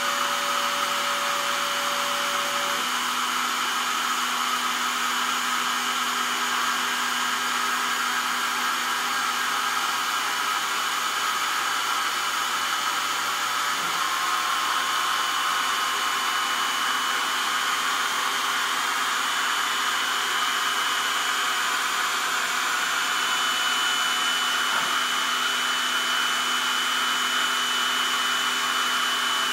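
Sherline benchtop CNC mill running its warm-up routine: a steady motor whir with whining stepper-drive tones that shift in pitch a few times as the axes change moves.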